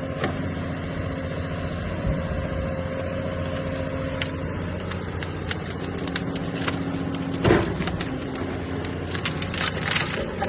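Excavator's diesel engine running steadily, with a loud crack about seven and a half seconds in and a run of smaller snaps near the end.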